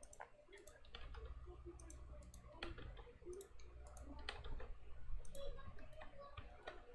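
Irregular clicks of a computer mouse and keyboard, faint, over a low steady hum.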